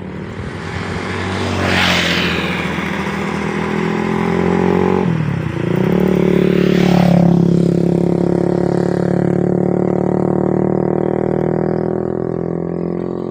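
A motorcycle engine running close by. Its pitch dips about five seconds in, then holds steady and loud.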